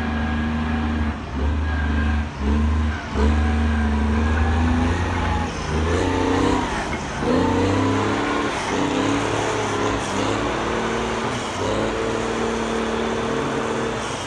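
Engine of a heavy road-clearing machine running under load, with a steady drone broken by brief dips. About halfway through its pitch shifts up and down as it works, then it settles back to a steady drone.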